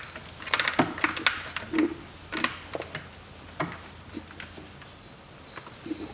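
Irregular clicks, knocks and rattles of gloved hands handling a car's engine wiring harness and plastic connectors, with short high chirps near the start and near the end.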